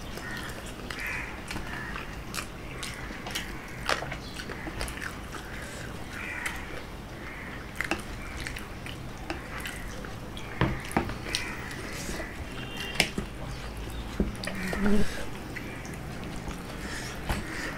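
Close-up eating sounds: chewing of curry and roti, with scattered sharp clicks and taps from fingers working food on steel plates.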